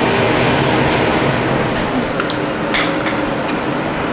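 Kitchen extractor hood fan running steadily, with a few light clinks of a spatula against a frying pan between about two and three seconds in.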